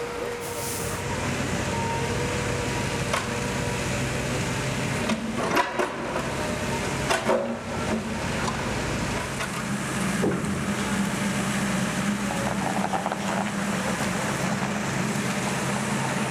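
A motor vehicle engine running steadily, with a few clicks and knocks partway through.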